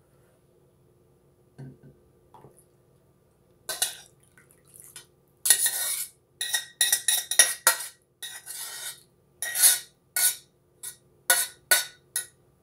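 Loud slurping of chicken noodle soup broth drunk straight from a tipped-up stainless steel pot: about a dozen short, hissing slurps in quick succession, starting about four seconds in.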